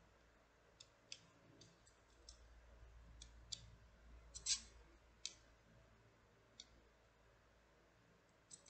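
Plastic sections of a macaron rotating-and-sliding bead puzzle ball clicking as they are twisted and slid by hand: sparse, irregular clicks, the loudest about halfway through.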